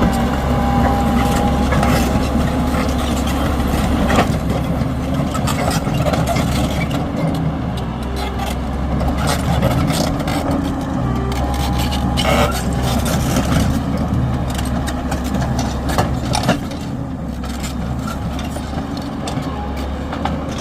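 A heavy engine running steadily at a low rumble, with scattered knocks and cracks of demolition work.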